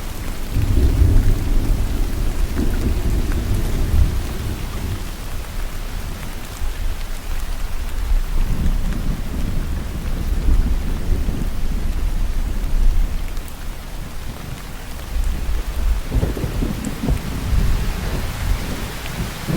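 Steady rain falling, with low rolling thunder that swells and fades three times: near the start, in the middle and near the end.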